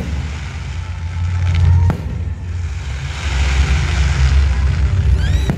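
Fireworks display: a continuous low rumble of shell launches and bursts, with a sharp crack about two seconds in and a short whistling firework near the end.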